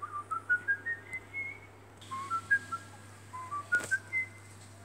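Short, clear whistled notes, each a little higher than the last, come in three quick rising runs. A single click falls near the end.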